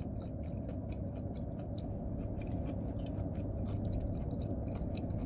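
Close-up chewing of fried food: scattered soft wet clicks and smacks of the mouth, over a low steady hum inside a car.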